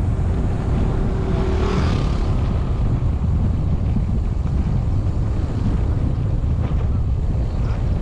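Steady low wind rumble buffeting the microphone of a camera riding down a rough road, mixed with the noise of the moving ride.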